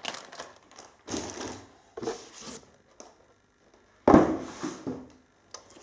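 Packaging being handled: a few short rustles, then a louder thump about four seconds in as something is set down on the table.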